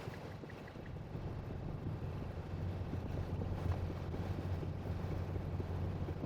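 Steady road noise inside a Tesla's cabin while it drives on a wet road in the rain: a low tyre rumble under the hiss of rain and spray, growing a little louder after about two seconds.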